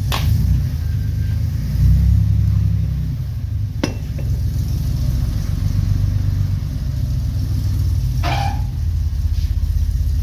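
1969 Jeep CJ5's engine running under way: a steady low rumble that swells briefly about two seconds in. Three short knocks sound over it, near the start, about four seconds in and about eight seconds in.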